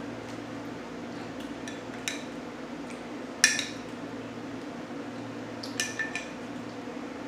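A few sharp clinks of a spoon against a glass dish and plate while seafood is handled, the loudest about three and a half seconds in, over a steady low room hum.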